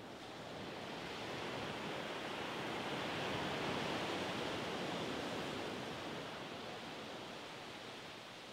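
Gentle surf breaking and washing up a sandy beach: an even hiss of water that swells over a few seconds, loudest about halfway through, then fades as the wash spreads out.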